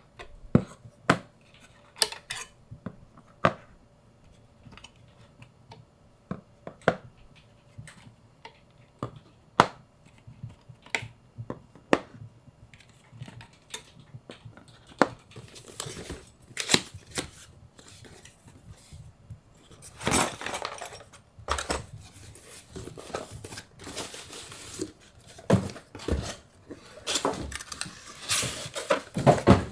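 Computer parts being handled during a PC build: scattered sharp clicks and knocks of hard parts being set down and fitted, turning about halfway into longer rustling and scraping, as of packaging being handled.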